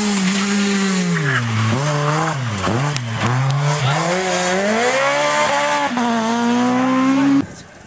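BMW Compact rally car's engine at high revs, passing close by: the revs drop and flicker as it shifts down about two seconds in, then climb again through the gears as it accelerates away. The sound cuts off abruptly near the end.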